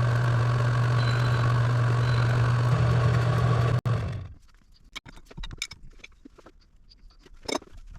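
1929 South Bend metal lathe running with a steady hum for about four seconds, then cutting off abruptly. After that come scattered light clicks and taps.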